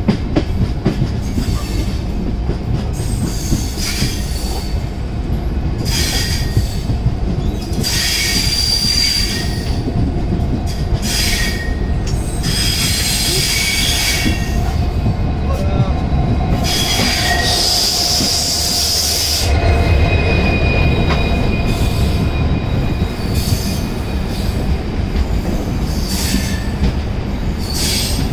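Passenger train rolling slowly through a station, heard from alongside the coach: a steady rumble of wheels on rail with repeated short bursts of high wheel squeal. The rumble gets heavier about two-thirds of the way in.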